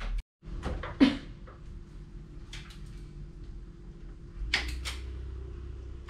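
A few scattered knocks and clicks, the loudest about a second in and a pair of sharp clicks near the end, over a steady low hum.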